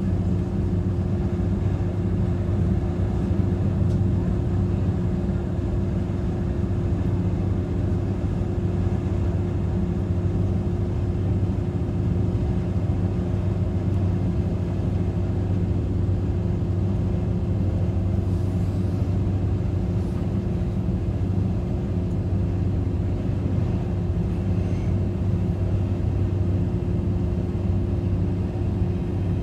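Interior of a regional express train running steadily between stations: a constant low drone with the rumble of the wheels on the track.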